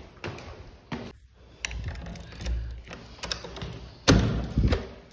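Thuds and knocks of heavy grocery bags being hauled up to an upstairs flat, the loudest thud about four seconds in.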